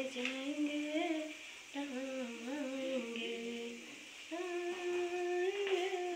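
A woman humming a slow tune on her own, with no accompaniment. She holds notes that slide from one to the next, in three phrases with short breaks between them.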